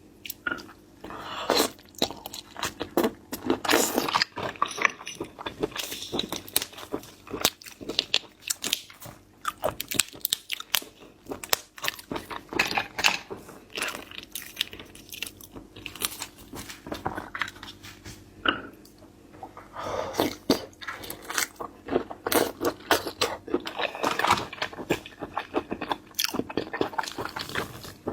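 Close-miked eating of seafood: repeated biting, crunching and wet chewing, the crunches coming in dense clusters.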